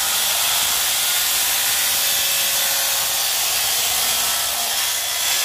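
Handheld circular saw running under load, cutting steadily across a wooden patio beam.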